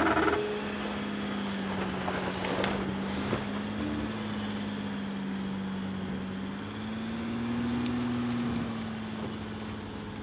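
Mercedes-Benz Sprinter 4x4 van's diesel engine running under load as the van crawls uphill through dry brush, its note rising a little about seven seconds in and settling again near the end. Dry weeds crackle against the van.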